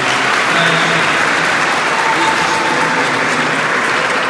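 Audience applauding, a dense steady clapping that swells in just before and holds at full strength.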